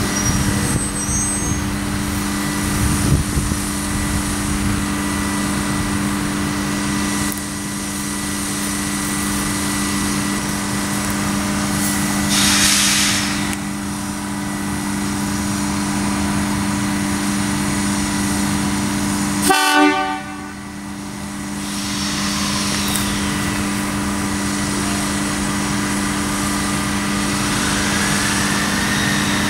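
Bluebird railcar 257 'Kestrel' running with a steady engine note as it pulls slowly away, with one short horn blast about two-thirds of the way through.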